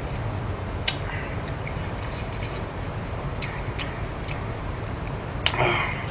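Close-miked eating sounds: a man chewing and smacking his lips, with a few short wet clicks and a brief slurping breath a little after five seconds in, over a steady low hum.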